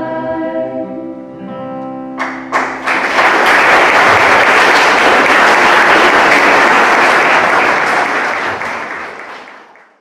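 A choir with guitar holds the last chord of a hymn, which ends about two seconds in. The audience then applauds, and the applause fades out near the end.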